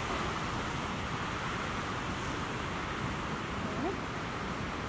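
Steady rushing noise of wind and water at the cooling pond, with no distinct events standing out.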